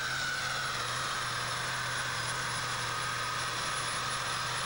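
Ford 8630 superstock pulling tractor's diesel engine running flat out as it pulls the weight sled down the track, a steady drone under a high whine that slowly falls in pitch.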